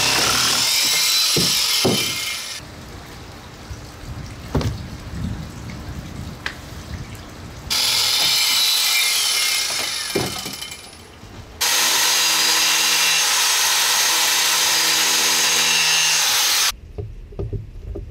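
Power drill and jigsaw cutting into a fiberglass boat console, in several loud runs of a few seconds each, with the motor pitch rising then falling. Knocks and handling noises come between the runs, and the cutting stops near the end.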